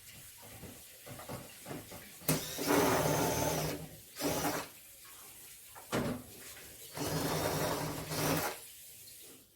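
Small electric power tool such as a cordless screwdriver running in short bursts: two runs of about a second and a half, with brief blips between.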